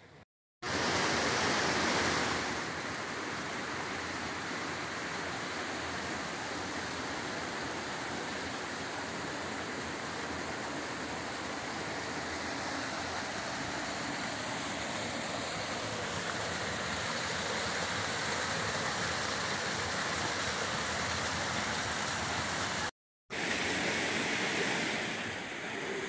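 Steady rush of water from a mountain creek and waterfall, an even, continuous noise that cuts out briefly twice, just after the start and about 23 seconds in.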